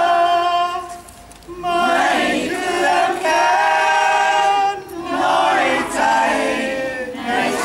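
A crowd of people singing a song together in unison, holding long notes, with a pause between phrases about a second in and shorter breaks later.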